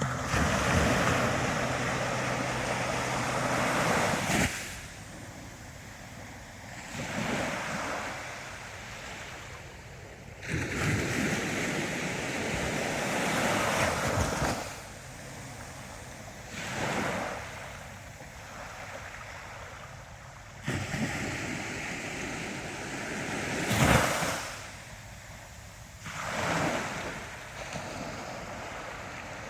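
Ocean waves breaking and washing up a shore, each surge rising and falling away, with a large wave about every ten seconds and smaller ones in between.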